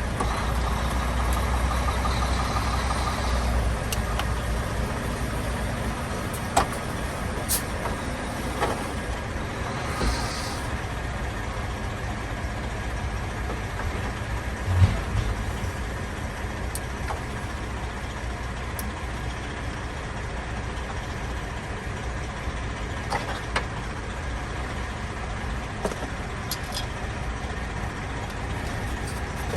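Steady low engine rumble, with scattered clicks and knocks from hands and tools working loose plastic dash trim.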